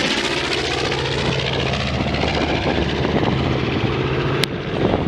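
B-25 Mitchell bomber's two Wright R-2600 radial engines and propellers droning steadily as the plane flies away after passing overhead, its high-pitched hiss slowly fading.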